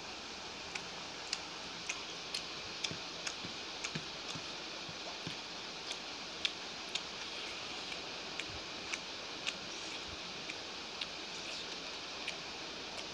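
Eating by hand: fingers working biryani rice on a plate, and chewing, giving small sharp irregular clicks about one or two a second over a steady hiss.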